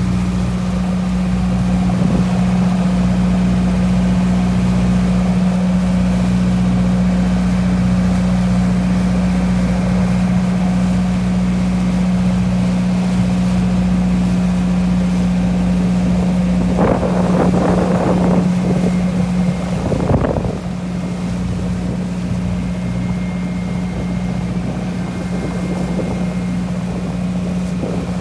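Ferry's engine running with a steady low drone, with wind noise on the microphone. About seventeen seconds in a brief irregular louder noise rises over it, and a few seconds later the drone drops a little quieter.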